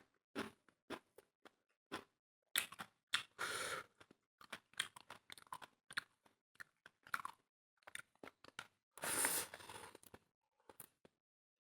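Close-up chewing and crunching of food by a person eating: irregular crisp crackles and clicks of chewing, with two longer, louder crunching stretches about three seconds and nine seconds in.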